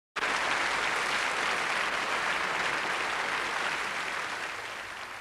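Concert audience applauding: dense, steady clapping that starts suddenly and fades out near the end.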